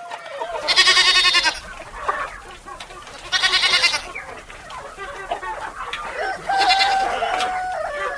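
A farm animal bleating three times, each call under a second long with a quavering pitch.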